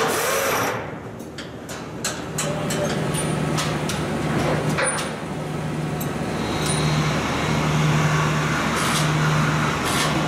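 Overhead electric chain hoist motor running in short on-off jogs: a steady low hum that starts and stops several times, with chain clinks and metal knocks, as it lifts a steel flatbed off a truck frame. A hissing noise cuts off under a second in.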